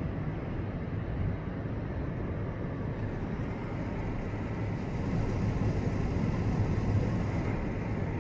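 Steady low rumble of outdoor background noise with a faint steady hum underneath, swelling slightly about five seconds in.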